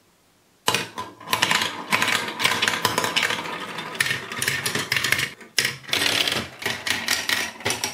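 Several plastic balls rolling and clattering down plastic marble-run tracks, a dense run of clicks and rattles that starts just under a second in, with a short break a little past halfway.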